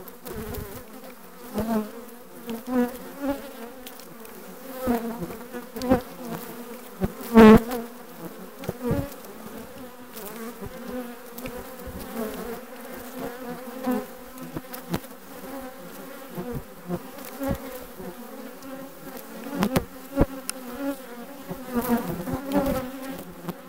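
Honeybees buzzing around an open hive: a steady drone of many bees, with individual bees repeatedly swelling loud and fading away as they fly close past, the loudest about seven seconds in.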